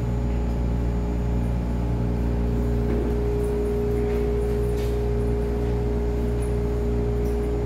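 Refurbished Metro-Cammell electric multiple unit of the MTR East Rail line under way, with a steady low rumble and a steady motor whine that gains a strong higher tone a few seconds in.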